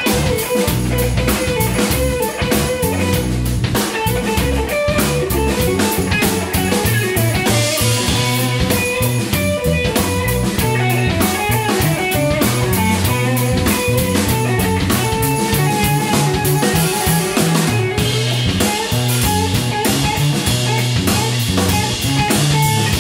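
Live rock band playing a jam: electric guitar over a drum kit.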